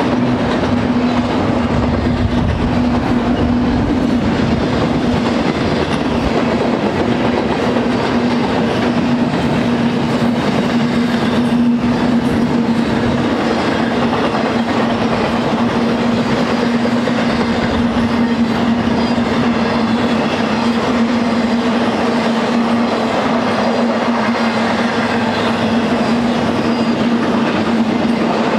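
Cars of a long intermodal freight train, double-stack container well cars and trailers on flatcars, rolling past: a steady rumble and wheel-on-rail noise with a steady low hum.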